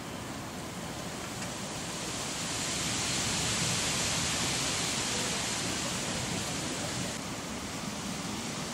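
Steady rushing noise of the thunderstorm outdoors. It swells for a few seconds in the middle, then eases back.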